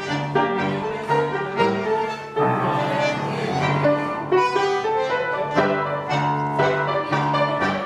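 Tango music: piano and bowed strings over a steady, marked beat of about two pulses a second.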